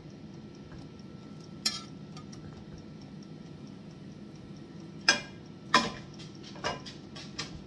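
Knocks and clinks of a spatula and frying pan on a gas hob: about five sharp knocks, the loudest two close together about two-thirds of the way through. A steady low hum runs underneath.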